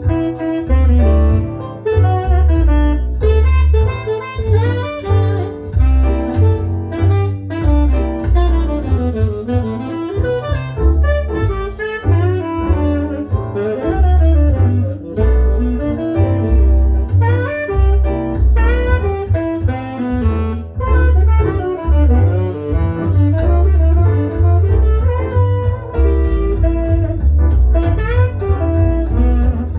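Jazz with saxophone and a heavy bass line, played through Mission 701 bookshelf speakers.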